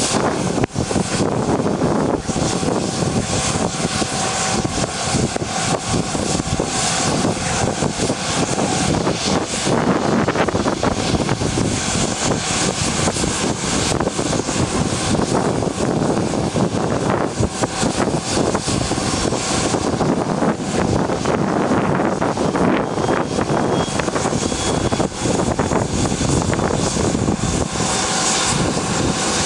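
Bombardier Global Express's Rolls-Royce BR710 turbofan engines running on the ground, a loud steady rush of jet noise. A faint whine climbs slowly in pitch near the end.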